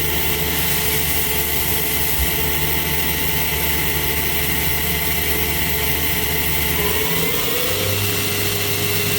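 Spindle of a 2008 Doosan Lynx 220G CNC lathe running at its top speed of 6,000 rpm, a steady machine whine. About seven seconds in, the tone shifts with a short rise and settles at a new steady pitch.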